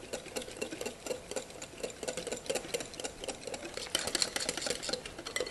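A utensil stirring a flour and coconut-milk batter in a bowl, making rapid, uneven clicks and scrapes against the bowl.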